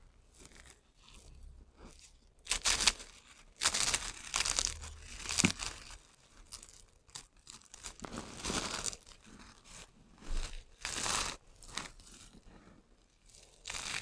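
Dry, crunchy soap shavings and thin purple soap pieces crunching and crackling as hands squeeze and crush them. The sound comes in irregular bursts, with the loudest crunches a few seconds in and again a little past halfway.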